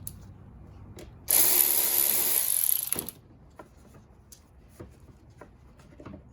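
A cordless power driver running in one steady burst of about two seconds, opening a hose clamp on the cold air intake a little wider, followed by a few light clicks of parts being handled.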